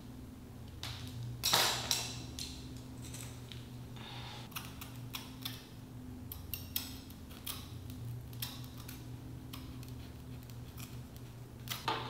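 Hands working a wig at the hairline: rustling of hair and lace with scattered small clicks and handling noises, over a low steady hum.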